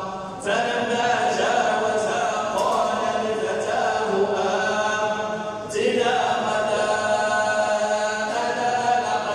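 Quran recitation in a melodic chant, with long held phrases and short pauses for breath about half a second in and again near six seconds in.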